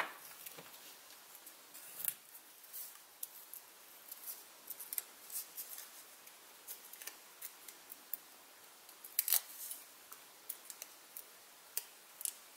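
Faint, scattered clicks and rustles of hand paper-crafting: card stock and small pieces being handled and worked on a craft table, with a couple of sharper clicks about two seconds in and again about nine seconds in.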